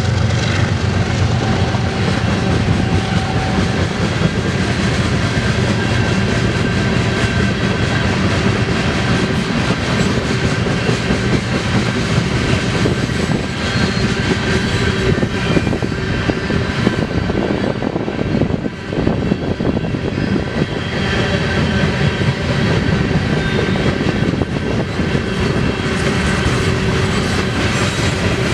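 BNSF freight train passing at speed: a steady, loud rumble of wheels on rail as the cars roll by.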